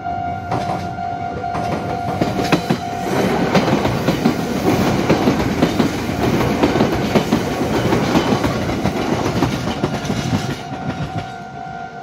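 Red Meitetsu electric commuter train passing a level crossing at close range: a loud rumble with rapid clickety-clack of wheels over rail joints for about seven seconds, from about three seconds in until it fades near the end. The level crossing's warning bell rings steadily in a pulsing tone, drowned out while the train goes by and heard again as it passes.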